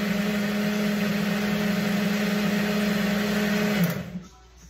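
Ninja single-serve blender running steadily as it blends a drink, a constant motor hum that stops abruptly about four seconds in and quickly winds down.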